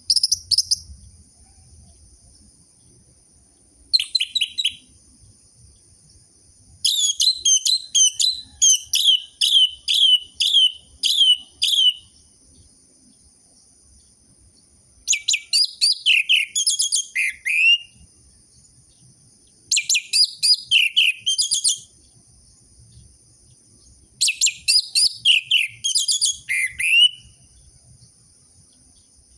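Orange-headed thrush (anis merah) singing in six separate phrases of quick, high chirping notes with pauses between them; the longest phrase is a fast run of repeated notes lasting about five seconds. A steady high-pitched whine continues underneath.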